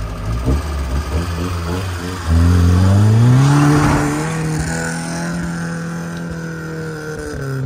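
Stock Fiat Uno's engine revving as the car pulls away through deep sand: steady at first, then about two seconds in it jumps to high revs, climbs and holds, easing back near the end.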